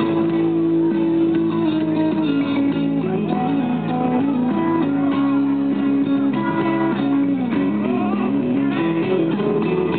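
Music led by guitar, with held notes that shift in pitch every second or so.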